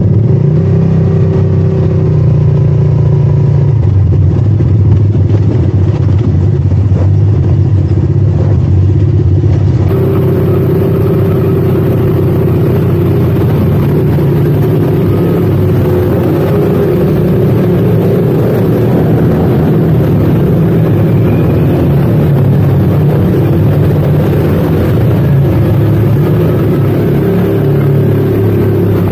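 ATV engine running under way, a steady drone that rises and falls slightly in pitch. The tone changes abruptly about ten seconds in.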